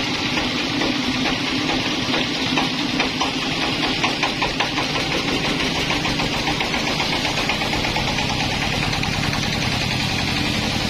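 Sawmill engine running steadily, with a run of quick knocks from about two to five seconds in.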